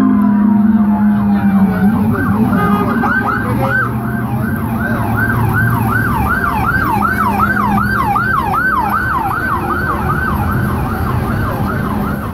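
NYPD police siren: a falling wail gives way, about two seconds in, to a fast yelp sweeping up and down about twice a second. A low steady tone fades out as the yelp begins, and there is city traffic noise underneath.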